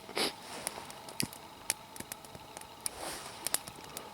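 Wood campfire crackling, with a handful of irregular sharp pops and a short rustle at the very start.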